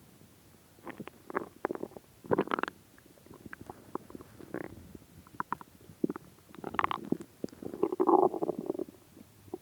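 A human stomach growling and gurgling in irregular bursts, the longest and loudest one near the end: an empty stomach after about three days without food.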